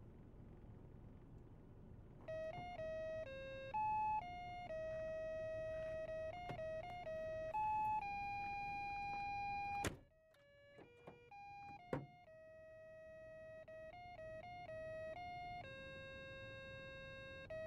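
A "Lights and Sounds of Christmas" light-set music module playing a glitchy, monophonic electronic Christmas tune as a string of buzzy beeping notes, over a low hum. The melody starts about two seconds in, cuts out with a click about ten seconds in and picks up again around twelve seconds.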